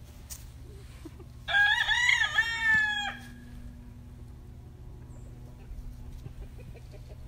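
A rooster crowing once: a single pitched call of about a second and a half that dips and rises a few times before ending, over a steady low hum.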